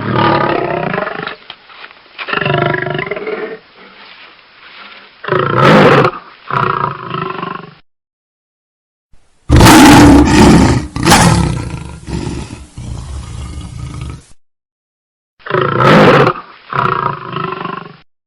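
African lions roaring in a string of separate bouts, each a run of deep, pitched calls, with short gaps of dead silence between bouts where the recordings are spliced together. The loudest bout starts about halfway through.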